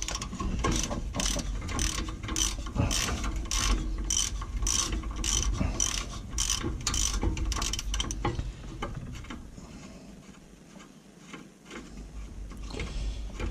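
Hand socket ratchet clicking in quick, even strokes, about two to three a second, as it works a rear brake caliper bolt. The strokes thin out and pause about two-thirds of the way through, then a few more come near the end.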